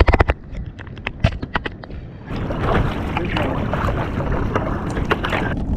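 Water splashing around a kayak, with sharp clicks and knocks. A denser, steady splashing starts a little over two seconds in.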